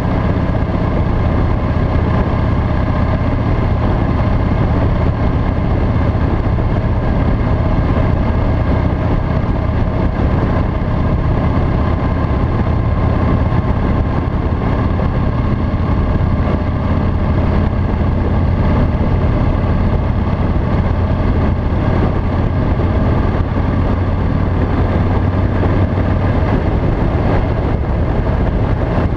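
Harley-Davidson V-twin motorcycle engine running steadily at highway cruising speed, heard from on the bike as an even, low drone that does not change pitch.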